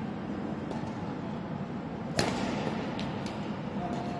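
Badminton racket striking a shuttlecock, one sharp crack about two seconds in, with a few fainter hits before and after. A steady low hum runs underneath.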